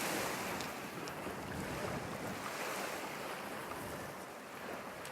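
Waves washing onto the beach, a steady rushing hiss, mixed with wind.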